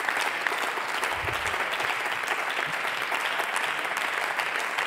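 Applause from many members of parliament, a steady mass of hand-clapping.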